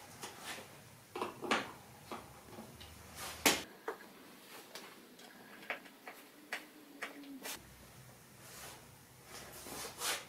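Scattered clicks and knocks of a knife being fitted into the clamp of a wooden knife-sharpening jig and the clamp screw being tightened with a screwdriver. The sharpest knock comes about three and a half seconds in.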